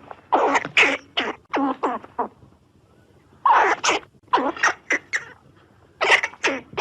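An animal giving short, abrupt calls in three quick bouts of several calls each.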